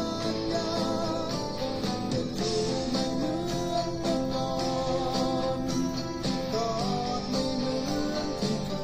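Eko LP electric guitar played through a Cuvave Cube Baby multi-effects unit and a JBL Clip 3 portable speaker, playing a sustained melody with bent and sliding notes.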